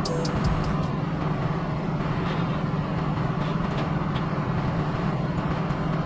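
A vehicle engine running steadily, a low even rumble with a haze of road or mechanical noise.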